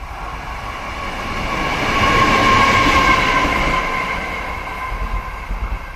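Taiwan Railways E200-series electric locomotive running light past at speed: a rumble with a steady whine that swells to its loudest about two to three seconds in and then fades as it goes by, with an uneven clatter of wheels on rail near the end.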